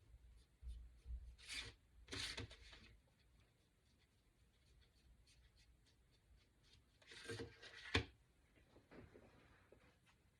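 Faint rubbing strokes of paint being applied to a small wooden cutout, in a few short spells. A single sharp tap comes near the end.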